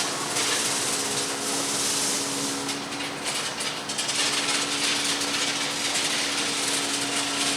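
A steady engine hum under a constant hiss, with a slight dip in level a few seconds in.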